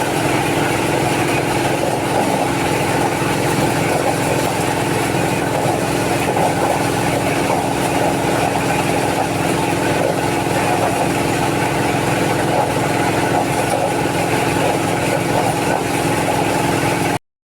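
Engine-driven corn sheller running steadily, a constant engine hum under a busy rattle. It cuts off suddenly near the end.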